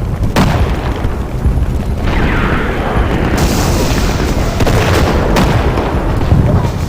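Air-raid bombing: a constant heavy low rumble with explosion booms, and sharp blasts about half a second in and again a little past five seconds.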